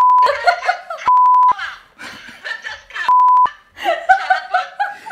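A man and a woman laughing, cut into by three short, loud electronic beeps of one steady pitch: one at the start, one about a second in and one about three seconds in.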